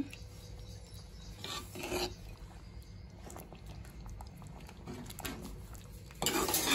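A steel spoon scraping and rubbing against a metal pot while it stirs and presses thick chickpea curry. There is a louder scrape about a second and a half in and another near the end, over a low steady hum.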